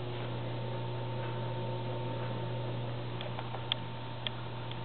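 1941 Bendix Deluxe automatic washer running with its bodywork removed: a steady electric-motor hum with a fainter higher tone above it, and a few light ticks from about three seconds in.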